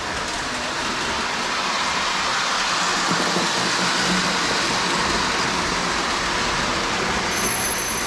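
Prewar Lionel 256 O gauge locomotive pulling its passenger cars around the track, a steady running noise of the motor and wheels on the rails.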